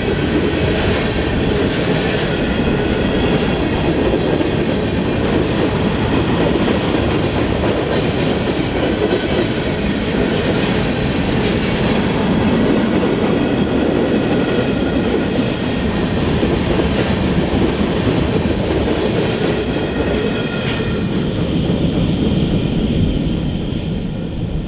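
Covered hopper cars of a freight train rolling past close by: a steady rumble of steel wheels on the rails, with faint clacking and thin high ringing from the wheels. The sound starts to fade near the end as the last car goes by.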